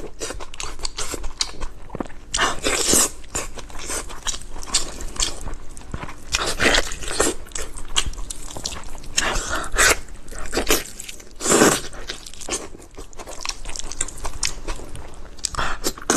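A person eating close to the microphone: wet chewing and biting with many small clicks, and louder, noisier mouthfuls every few seconds.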